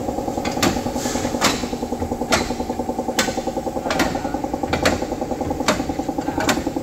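A machine running steadily with a fast rattle, with a sharp metallic clank repeating a little less than once a second.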